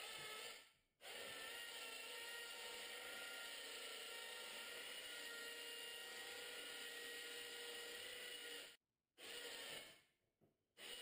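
Small electric winch motor whining steadily as it reels in its line, hauling a Sea-Doo personal watercraft off its trailer onto a shop cart. It pauses briefly just under a second in, runs on until about nine seconds in, then runs again in short spurts near the end.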